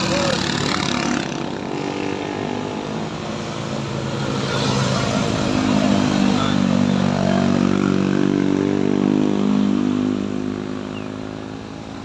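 Small motorcycle and scooter engines labouring up a steep hill under load as they pass close by. The engine sound swells in the middle and fades near the end.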